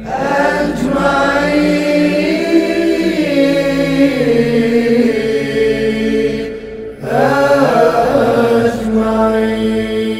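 Aleppan funeral chant (tajweeq al-mayyit): a male munshid's voice sings two long drawn-out phrases, winding up and down over a steady low drone. There is a short break about six and a half seconds in.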